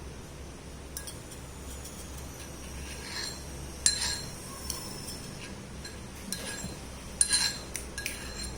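A metal spoon clinking and scraping against a container as ground ginger and basil paste is pushed off it into jaggery water. There are several light clinks, the loudest about four and seven seconds in, over a faint steady hum.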